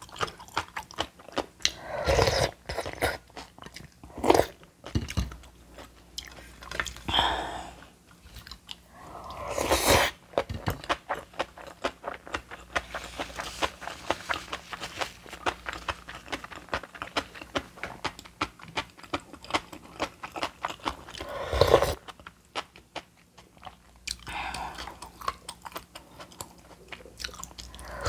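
A person chewing crunchy food close to the microphone, most likely aged-cucumber (nogak) bibimbap: dense, rapid crisp crunching with a handful of louder bites spread through.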